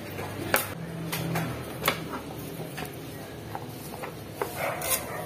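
Kitchen knife cutting through spring onion stalks held in the hand: a handful of sharp, crisp clicks and snaps, irregularly spaced.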